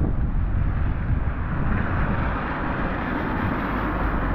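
A car driving past on a wet road, its tyres hissing through the water, swelling and fading in the second half. Wind rumbles on the microphone throughout.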